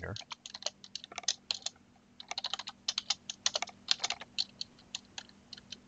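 Typing on a computer keyboard: irregular runs of keystrokes, with a brief pause about two seconds in.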